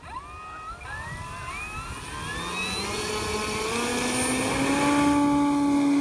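Electric motor and propeller of a Carbon-Z T-28 Trojan model plane throttling up for a takeoff roll: a whine that climbs in pitch and grows louder, then holds a steady higher tone near the end.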